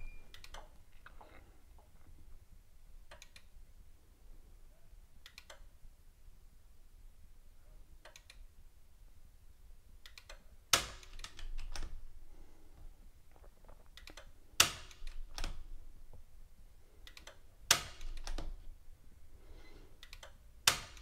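A consumer-unit RCD tripping with a sharp snap four times, about every three to four seconds in the second half, each snap followed by a second or so of smaller clicks as the toggle is pushed back on. These are the trips of a multifunction tester's RCD auto test. Fainter clicks come earlier, during the test steps that do not trip the RCD.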